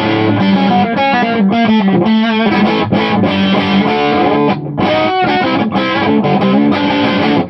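Electric guitar on its humbucker pickup, played through a modified Bell & Howell Filmosound tube amp with its presence circuit on, driven into distortion with a crunchy, Marshall-like tone. Chords and riffs run with a few short breaks and ring out near the end.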